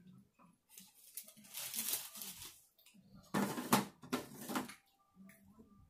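Close-up eating sounds: a mouthful of chilli spaghetti being chewed, with three short noisy bursts about a second and a half in, at about three and a half seconds, and just after four seconds.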